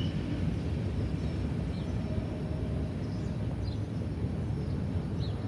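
Low, steady rumble of a receding grain train's covered hopper cars rolling along the track, with a few short, faint bird chirps.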